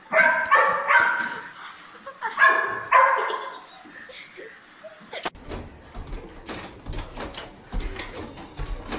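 A small dog barks about five times in quick succession, as it does at a robot vacuum cleaner. About five seconds in, the barking gives way to a dense run of quick clicks and taps.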